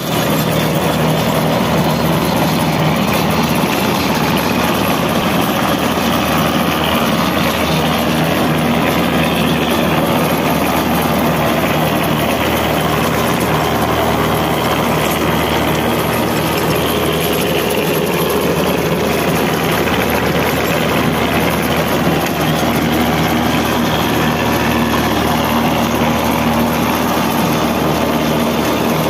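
Tractor's diesel engine and its rear-mounted rotavator running steadily, a continuous loud mechanical drone.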